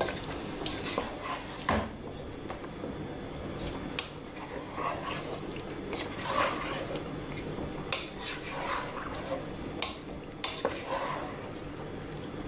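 A wooden spoon stirring thick butter chicken gravy in a nonstick pot, with irregular scrapes and soft knocks against the pan.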